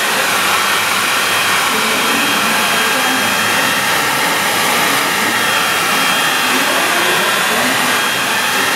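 Handheld hair dryer blowing steadily over a watercolour painting to dry the paint: an even rush of air with a faint steady whine.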